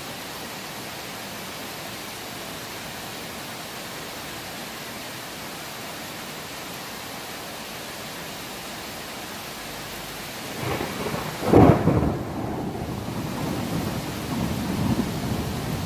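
Steady hiss of rain, then about two-thirds of the way in a clap of thunder breaks in with a loud crack and rolls on as a low rumble.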